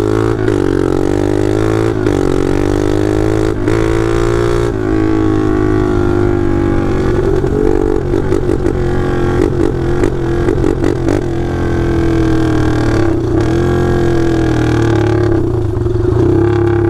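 Loud Taotao DB17 125 pit bike single-cylinder four-stroke engine running with no exhaust, straight-piped from the open header while being ridden. It revs up and down several times in the first few seconds, then holds a steadier pitch.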